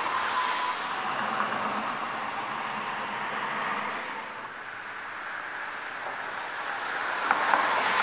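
Road noise from inside a moving car: a steady hiss of tyres and engine, easing off a little midway, with two small knocks near the end.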